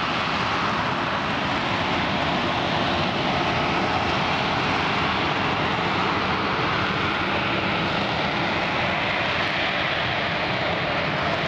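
Lockheed Martin F-35B Lightning II flying slowly in hover mode with its lift fan doors open. Its F135 jet engine and shaft-driven lift fan make a steady, loud jet noise that holds level throughout.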